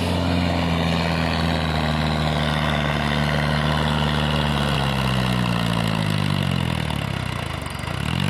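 A diesel tractor engine running under load as it hauls a loaded trolley through soft sand. Its pitch sags gradually from about halfway through, then climbs again near the end.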